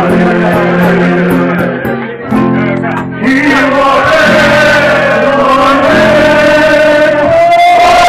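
Live mariachi-style song: a man singing in Spanish over acoustic guitar, holding one long high note through the second half.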